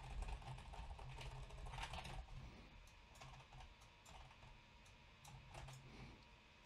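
Faint typing and key clicks on a computer keyboard while code is edited, irregular and sparse, over a low steady hum.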